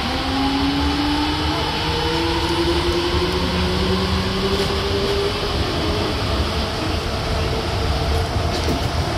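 Nippori-Toneri Liner 330-series rubber-tyred guideway train accelerating, heard from inside the car. Its Mitsubishi IGBT VVVF inverter whines in several tones that rise in pitch for about the first five seconds and then level off, over a steady rumble of tyres on the guideway.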